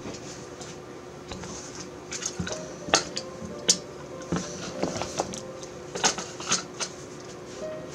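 Hands handling packaging and small items on a table: a string of light clicks, taps and rustles, the loudest pair about three seconds in.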